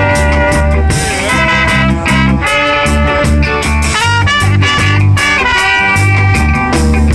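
A ska band playing live: an instrumental passage between sung verses, with guitar over a pulsing bass.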